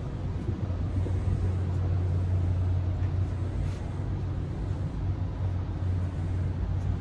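Steady low machinery hum of the LNG-fuelled ferry under way, with a constant wash of noise above it, heard inside the passenger deck.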